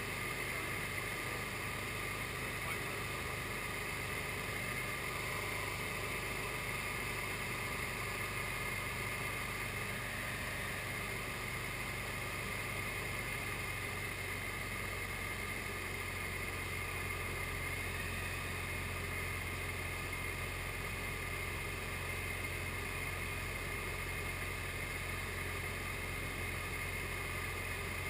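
SD1 Minisport ultralight aircraft's engine and propeller running steadily in flight, a constant drone whose low note shifts slightly about halfway through.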